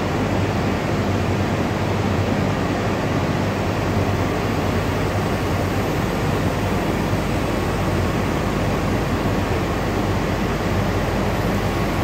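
Steady, loud noise of running plant machinery in the feedwater heater area of a power plant, an even rushing sound with a low hum underneath.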